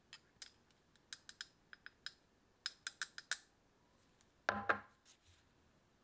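Small metal mesh sieve tapped to sift green tea powder: light, sharp metallic clicks in quick clusters of two to four, then a louder, fuller knock with a short rattle about four and a half seconds in.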